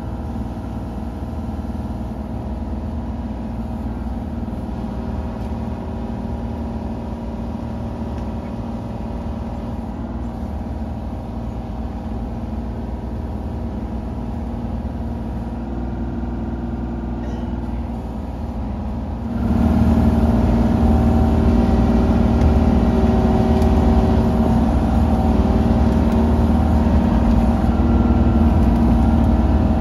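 Kubota KX033-4 mini excavator's three-cylinder diesel engine running steadily, heard from inside the cab along with its hydraulics. About two-thirds of the way through it suddenly gets louder and stays at the higher level.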